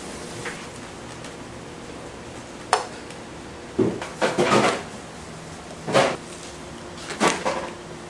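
Kitchen work clatter: a sharp knock about three seconds in, a short burst of clattering a second later, then a knock near six seconds and another pair near the end, over a steady low hum.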